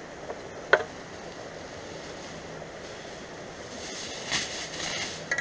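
Aluminum foil crinkling as hands and a knife work a foil-wrapped meat ball, the crinkling coming in a cluster near the end, over a steady outdoor hiss. A single sharp click sounds about a second in.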